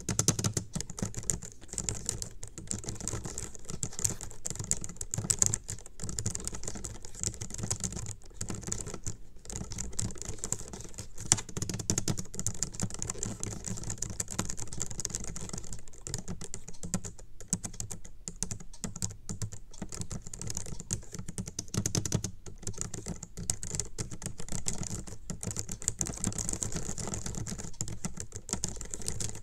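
Rapid, continuous typing on a low-profile computer keyboard: dense, irregular key clicks as random keys are pressed with both hands, many strokes a second.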